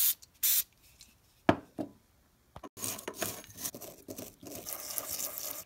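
A short burst of WD-40 aerosol spray hissing onto the disassembled ratchet parts, then a couple of small clicks. After that comes irregular scraping as grimy old grease is scraped out of the ratchet head with a flat hand scraper.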